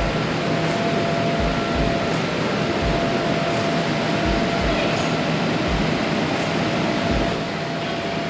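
Steady whooshing drone of the electric air blowers that keep an inflatable obstacle course inflated, with a constant hum in it. Low dull thumps come every second or so underneath.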